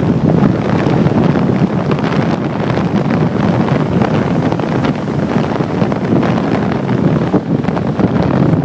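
Strong wind blowing across the microphone: a loud, steady rush that flutters and buffets without letting up.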